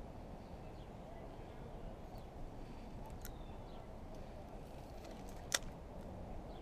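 Steady low outdoor background noise with faint bird chirps, broken by a small click a little past three seconds in and a sharp, louder click about five and a half seconds in.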